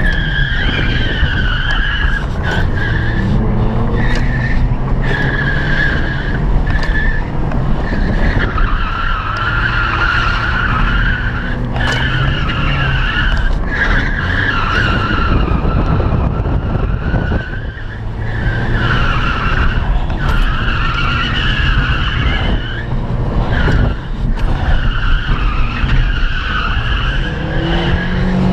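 Honda Accord sedan's 2.4-litre four-cylinder engine revving up and easing off as the car is driven hard through tight turns, heard from inside the cabin. The tyres squeal in repeated stretches of a second or more, with short breaks between.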